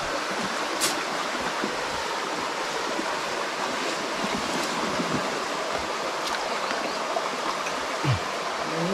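Steady rush of a small creek's running water, with a faint click about a second in.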